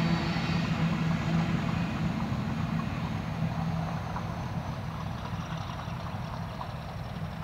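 Diesel locomotive engine running with a steady low throb and a faint high whine that slowly sinks in pitch, the whole sound fading gradually as it moves away.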